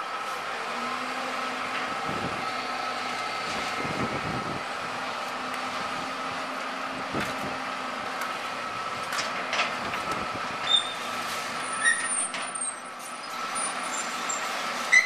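A John Deere tracked excavator's diesel engine runs steadily as it demolishes a building, with scattered knocks of debris. Several short, sharp, high squeaks come in the last few seconds.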